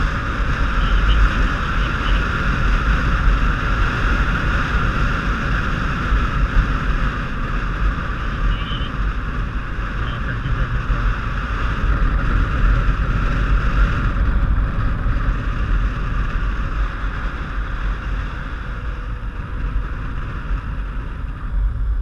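Wind rushing over a helmet-mounted camera on a moving motorcycle, over the steady low rumble of the engine and road. The rushing eases a little about two-thirds of the way through.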